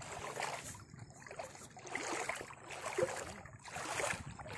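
Shallow clear water splashed and sloshed by a hand, in irregular bursts.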